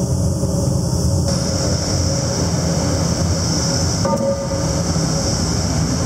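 Steady, loud mechanical drone of a giant hydraulic forging press's machinery running, with a brief high tone about four seconds in.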